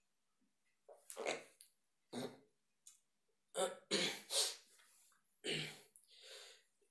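A man's short, frightened vocal sounds and breaths, acted out as fear, coming in a string of brief bursts with gaps between them.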